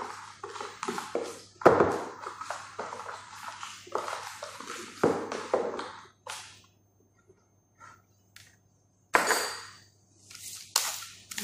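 Food-preparation handling sounds: a quick, irregular run of small clicks and knocks for about six seconds, then a few scattered ticks and two louder scraping bursts near the end.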